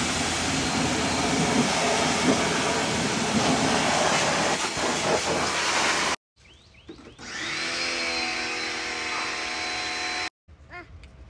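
Pressure washer spraying water into a car's engine bay: a loud, even hiss that stops suddenly about six seconds in. After a short gap the washer runs again with a steady whine.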